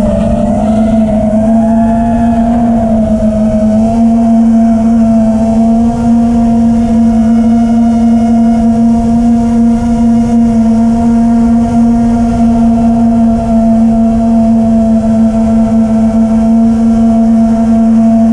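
Quadcopter drone's electric motors whining at a steady pitch under sustained throttle, recorded by the drone's own onboard camera with a low rush of wind and vibration underneath. The pitch wavers a little in the first few seconds, then holds level.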